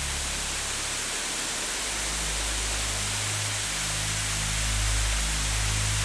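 Steady rushing hiss of a waterfall's falling water, with soft background music of low held notes underneath.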